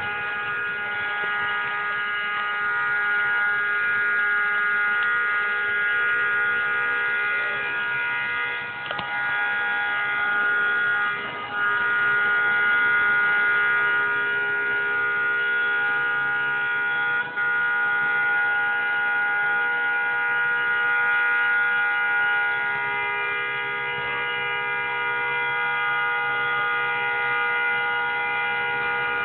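A vehicle horn sounding without a break as one steady two-note chord, with a few brief dips in level.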